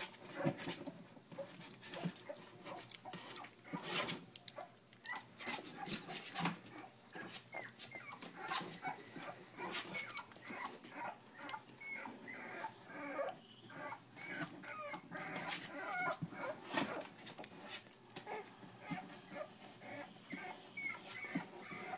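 Three-week-old Miniature Bull Terrier puppies giving many short whimpers and squeaks, mixed with frequent clicks and rustles from being handled.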